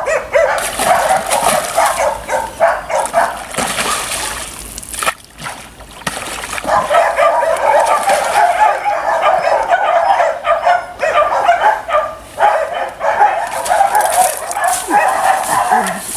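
Dog whining and yipping excitedly, with a short lull about five seconds in.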